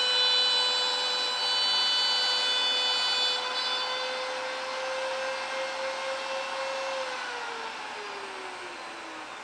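CNC router spindle running with a steady high whine while cutting. About three seconds in, the sharper top of the sound stops and it gets quieter. Near the end the spindle's pitch falls steadily.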